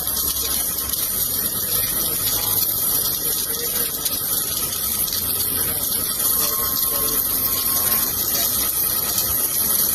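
Submerged arc welding equipment running: a steady hiss with a low hum underneath.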